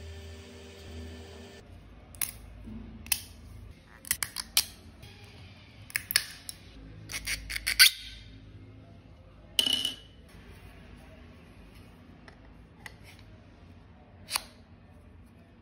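Hard 3D-printed PLA plastic clicking and snapping as support material is broken off a printed earbud case: a quick run of sharp snaps and crackles from about two to eight seconds in, one louder crack near ten seconds, and a single click near the end.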